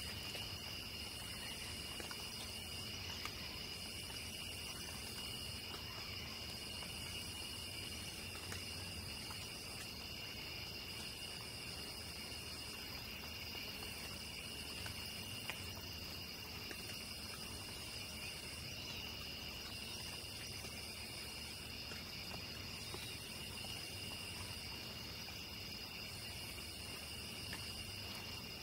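Night insect chorus of crickets trilling steadily, with a higher, shriller insect call in the chorus coming and going about every two seconds.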